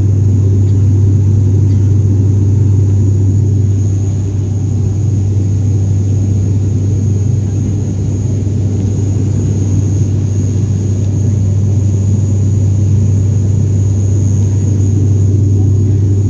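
Airliner cabin noise during the climb after takeoff: a loud, steady low drone of the jet engines and airflow, with a thin high whine held steady above it.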